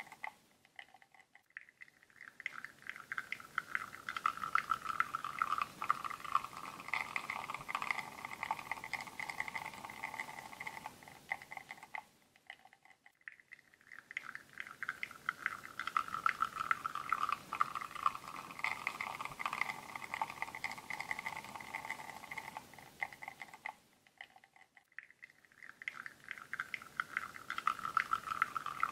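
Espresso from a La Marzocco Linea Mini's bottomless portafilter streaming into a cup, with fine crackling and sputtering over a steady whine. The sound fades almost to nothing three times, for about a second and a half each, roughly every twelve seconds, as one shot ends and the next begins.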